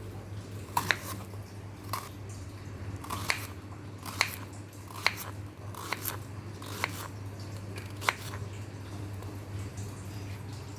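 Knife slicing a peeled raw banana into thick rounds, each cut ending in a sharp tap on the chopping board, about once a second.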